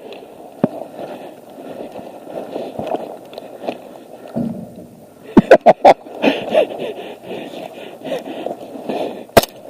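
Rustling movement noise with a quick run of about four sharp clicks about five and a half seconds in, and one louder sharp click near the end.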